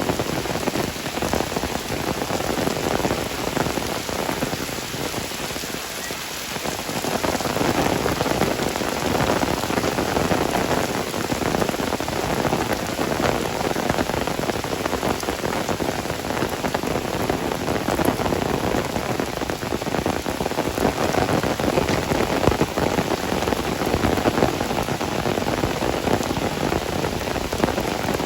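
Steady rain falling, a dense noise made of many separate drop hits, easing slightly for a moment about five seconds in.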